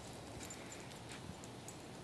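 Faint outdoor ambience: distant small birds chirping in short, high, thin notes, with a couple of soft rustles in dry leaves and grass.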